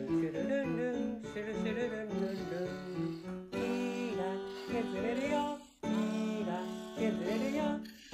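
Background song: a plucked acoustic guitar with a singing voice over it, breaking off briefly about six seconds in.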